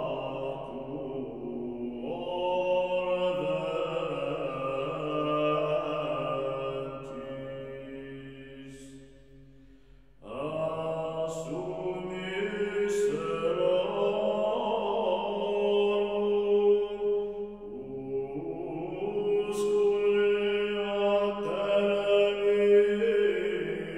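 Slow chanted vocal music with long held notes. It fades almost to silence about nine to ten seconds in, then begins a new phrase.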